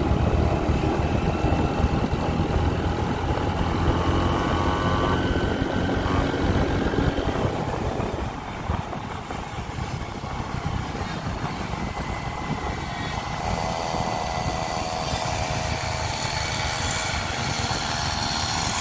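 Motorcycle engines running at road speed: the small petrol engine of a homemade wooden-frame motorbike and the bike filming alongside it, over a steady rush of wind and road noise.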